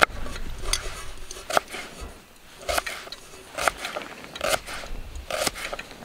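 Kitchen knife slicing through a red onion and tapping onto a wooden cutting board, one crisp cut about every second.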